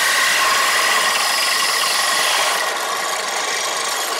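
Drill press running, its twist bit cutting through a galvanized iron pipe cap held in a vise: a steady whir with a scraping cut, a little quieter after about two and a half seconds.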